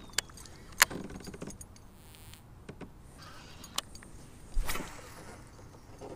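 Sharp clicks and knocks of fishing tackle in a kayak as a baitcasting rod and reel is cast and then reeled in, with a run of rapid fine ticking from the reel between about one and two and a half seconds in and a louder scuffing noise near five seconds in.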